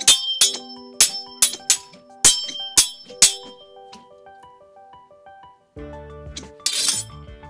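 Foley props clinking: a quick series of about eight sharp, ringing strikes in the first three and a half seconds, then a short harsh rattle about seven seconds in, over background music.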